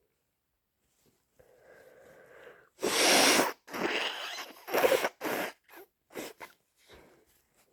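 A person with a head cold sneezing loudly about three seconds in, after a quieter drawn-out lead-in. A string of shorter bursts follows and fades away.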